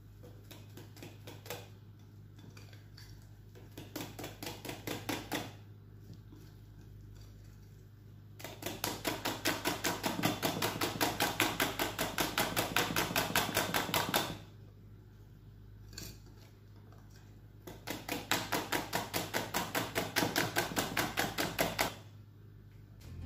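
A wire balloon whisk beats wet batter by hand in a glass bowl, the wires clicking against the glass in quick, even strokes of about five a second. The beating comes in three bouts: a short one about four seconds in, a long one of about six seconds through the middle, and another near the end.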